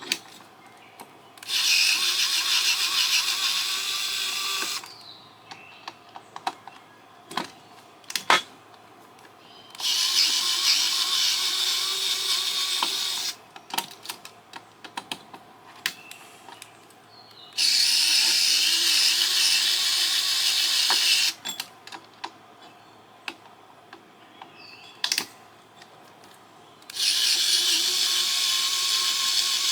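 Cordless power driver running in four bursts of about three to four seconds each, backing screws out of an LNBF's metal housing, with small clicks and clatter of parts between the bursts.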